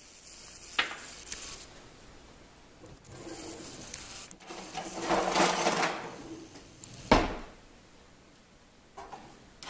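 Kitchen handling noises: a light click about a second in, a rasping, rattling stretch of a second or two near the middle, then a sharp knock, the loudest sound.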